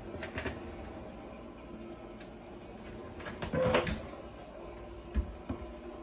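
Kitchen doors being handled. A metal oven door shuts with a clattering clunk and brief ringing about halfway through. Near the end there are two short low knocks as a wall cupboard door is opened.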